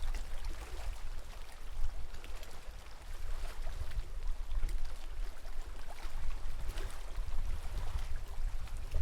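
Lake water splashing and lapping in small irregular clicks, over an uneven, gusty low rumble.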